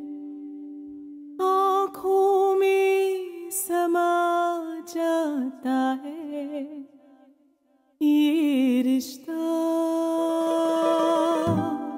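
A woman singing fado-style long held notes with wide vibrato over sparse acoustic guitar. The singing breaks off briefly about seven seconds in, then resumes.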